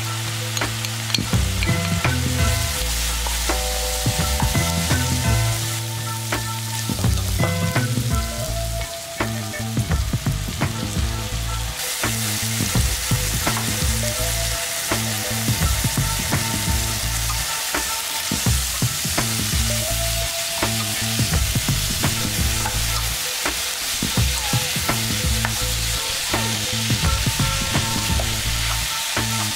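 Sliced beef brisket, onion and carrot sizzling as they are stir-fried in a frying pan, with a spatula scraping and tossing them. The hiss grows louder and denser about twelve seconds in, as the liquid seasonings (soy sauce, cooking wine, syrup, oyster sauce) hit the hot pan.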